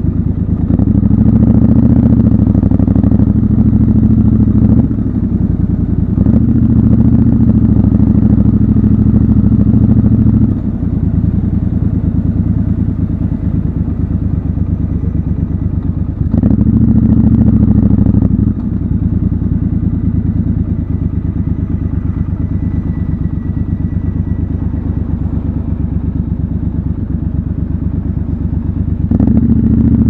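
Triumph Scrambler 1200 XC's 1200 cc parallel-twin engine running at low revs. The throttle is opened and closed about four times, giving louder stretches with quieter ones in between.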